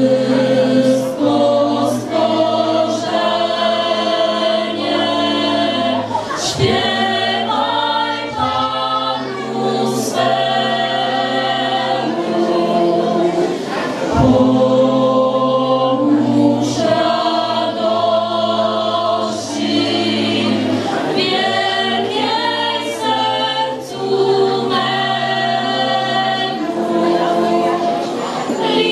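Small mixed choir of women's and men's voices singing a cappella in harmony, holding chords that change together phrase by phrase.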